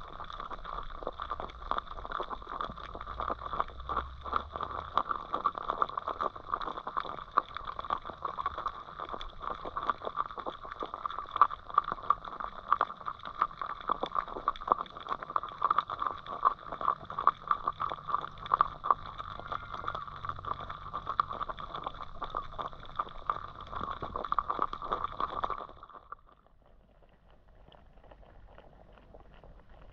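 Underwater sound in a river, heard through a submerged camera: dense crackling clicks over a steady hiss, dropping sharply to a faint hiss near the end.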